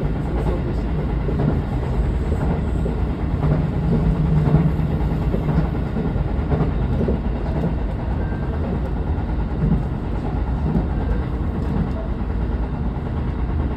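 Railcar running along the track, heard from inside the front cab: a steady low rumble of wheels and running gear, with a hum through the first half.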